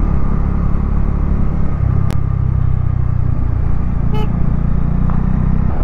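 Bajaj Dominar 400's single-cylinder engine running steadily as the motorcycle is ridden, with wind and road rush. There is a sharp click about two seconds in and a short beep about four seconds in.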